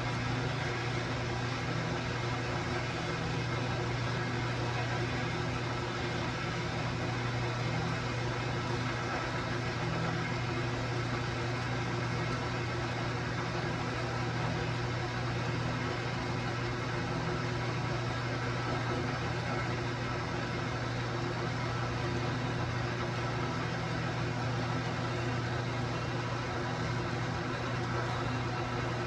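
A power saw running steadily as it cuts steel: a constant motor hum with a continuous cutting noise over it.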